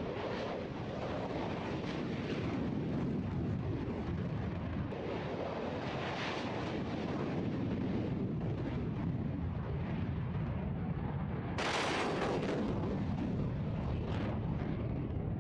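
F-35 Lightning II's single jet engine roaring on an afterburner takeoff, a steady rumbling roar as the fighter lifts off and climbs away. A brief harsher crackling burst comes about twelve seconds in.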